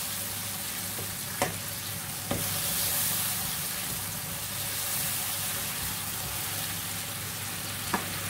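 Tomatoes and green chillies sizzling in oil and spice masala in a nonstick kadai while a spatula stirs them, the stage where the tomatoes are cooked down in the masala. The spatula knocks sharply against the pan a little over a second in, again about a second later, and once near the end.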